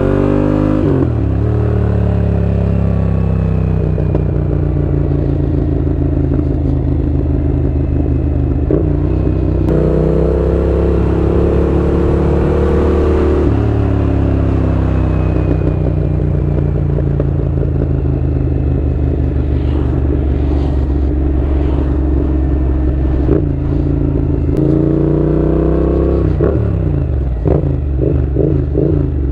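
Yamaha MT-07's parallel-twin engine running loud through a Mivv GP exhaust with no baffles. The revs climb, drop back and hold steady several times. Near the end the revs fall away with a run of crackles.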